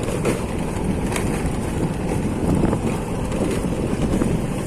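Motorcycle running at low speed over rough ground, with wind buffeting the microphone.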